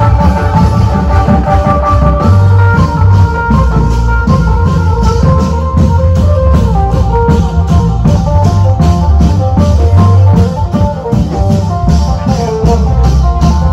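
Loud music with a steady drum beat, heavy bass and a melodic lead line.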